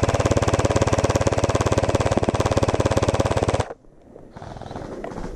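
Gel blaster firing on full auto: one long, rapid, evenly paced burst of its motor-driven gearbox cycling, close to the microphone, that stops abruptly about three and a half seconds in.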